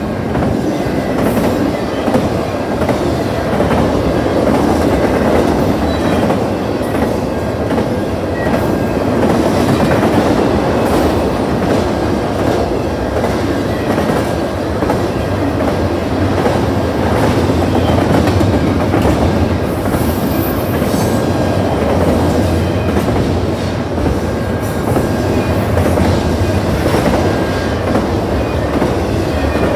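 Intermodal freight train rolling past close by: a steady rumble of double-stack container cars and trailer-carrying flatcars, with wheels clacking over the rail joints.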